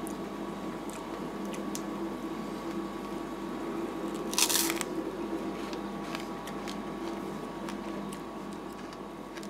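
Ice cream being eaten with a metal spoon from a paper cup: small spoon clicks and taps, and one short loud crunch about halfway through. Under it runs the steady hum of the rolled-ice-cream machine's cooling unit.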